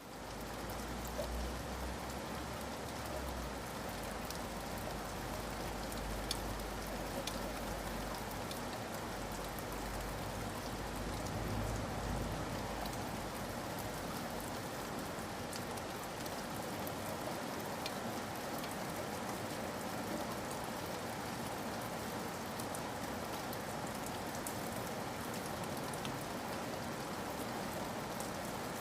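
Steady rain falling in a forest, an even hiss with scattered individual drops ticking on leaves and surfaces. A low rumble sits underneath for about the first twelve seconds.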